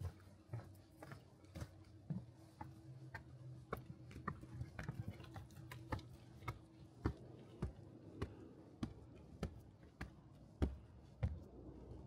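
Footsteps of a person walking at a steady pace along a forest trail, about two sharp steps a second.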